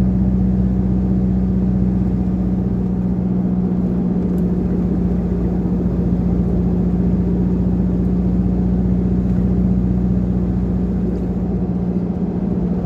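A 4x4's engine running steadily at cruising speed with a constant drone and road rumble.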